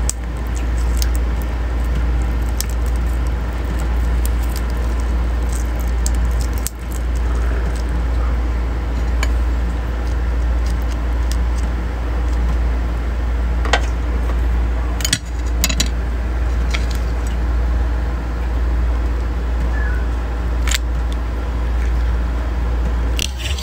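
A steady low hum throughout, with scattered small clicks and crackles as freshwater crab shells are cracked and pulled apart by hand.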